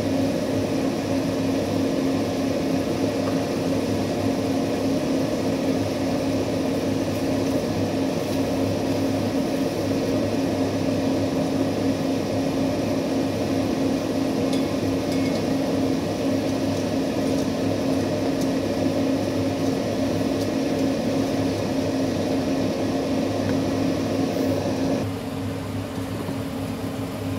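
Steady whir and hum of a kitchen range hood fan running over a pot cooking on the gas stove, with a faint scrape or two of a silicone spatula stirring the pot. The whirring drops off near the end.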